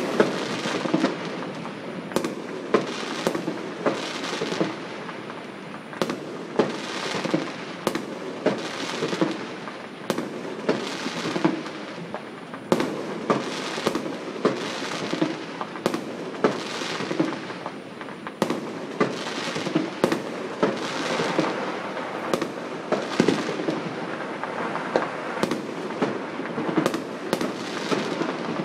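Fireworks going off all around: sharp bangs every second or so over a continuous din of more distant bursts and pops.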